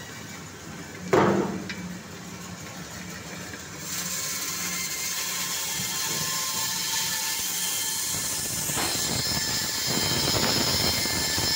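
Electric meat band saw running with a steady hum while its blade cuts through a frozen fish head. There is a sharp knock about a second in. From about four seconds a loud grating hiss of the blade through the frozen fish sets in, growing coarser and louder near the end.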